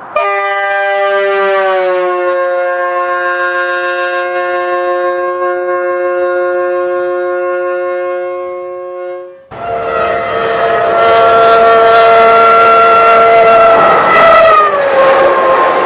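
Two samples of a Budd Metroliner's shrill Leslie air horn. The first is a clean, steady horn blast lasting about nine seconds that sags slightly in pitch in its first two seconds. The second starts abruptly about nine and a half seconds in: a horn sounding over train noise, its pitch dropping near the end.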